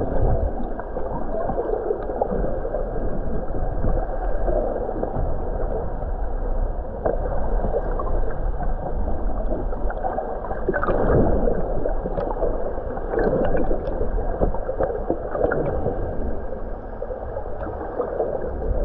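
Water gurgling and sloshing over a steady low rumble, with a few louder swells along the way.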